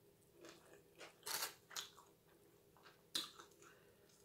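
A person chewing and biting into fried chicken wings: a few short, separate crunches, the loudest about three seconds in.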